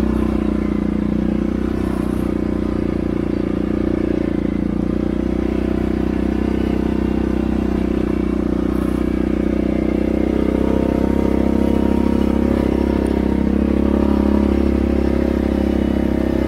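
ATV engine running steadily at an even speed, with no change in revs.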